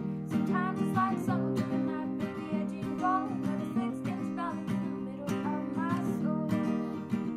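Background music: strummed acoustic guitar chords with a melody line that slides in pitch above them.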